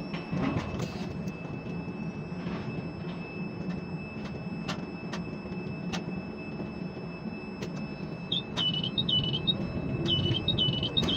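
Ship-to-shore container crane hoisting a container, heard from the operator's cab: a steady low machine hum with a faint high whine and scattered clicks. From about eight seconds in, a warbling electronic beep repeats several times.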